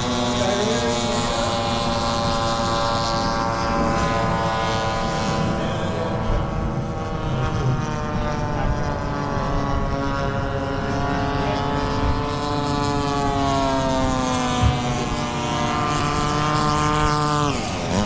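Piston engine and propeller of a large radio-controlled model warplane running steadily in flight. Its pitch wavers slowly as the plane manoeuvres, then drops sharply near the end as it makes a low pass close by.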